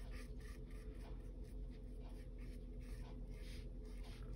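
Small flat paintbrush stroking acrylic paint onto a wooden painting panel: faint, short scratchy brushstrokes, about three a second.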